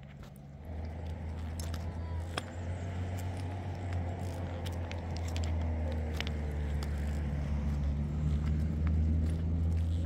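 An engine running with a steady low hum that starts about half a second in and grows gradually louder, with scattered clicks over it.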